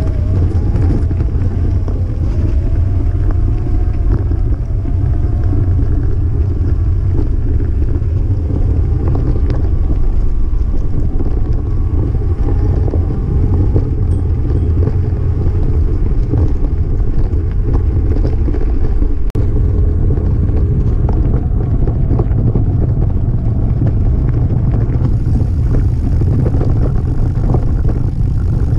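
Steady low rumble of wind buffeting and riding vibration on a mountain bike's action camera, with small rattles and ticks from tyres rolling over a gravel dirt track.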